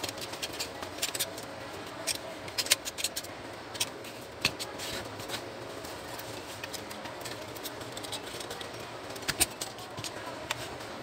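Light metallic clicks and rattles of the sheet-metal frame and parts of an Epson TM-U220 dot-matrix printer mechanism being handled and taken apart, in bunches during the first few seconds and again near the end.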